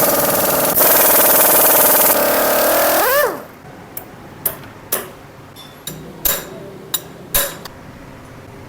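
Power impact wrench running hard on the motorcycle's magneto rotor nut, then spinning down with a falling whine about three seconds in. Afterwards several sharp metal clinks and knocks of tools and parts being handled.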